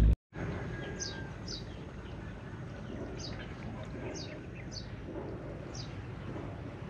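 A small bird chirping: about six short, high notes, each dropping quickly in pitch, spaced irregularly over a steady low outdoor background.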